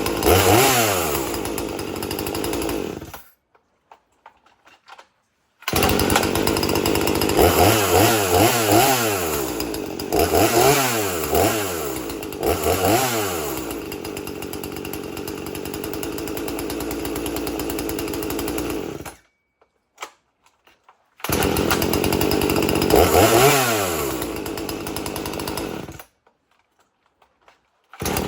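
Husqvarna 240 two-stroke chainsaw running and being revved repeatedly, each rev rising and falling back to idle, with a longer steady idle in the middle. The sound cuts off abruptly three times and comes back.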